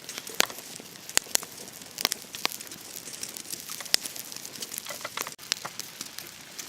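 Steady hiss of heavy rain with scattered, irregular sharp crackles and ticks from raindrops and a small wood fire charring material in a tin.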